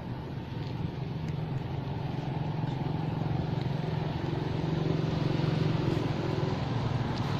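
A motor vehicle's engine running steadily with a low hum that grows gradually louder.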